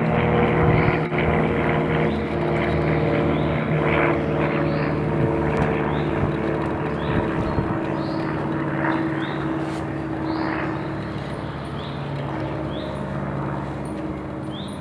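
A steady engine drone made of several pitched tones held together, slowly fading toward the end. Short high bird chirps sound over it now and then.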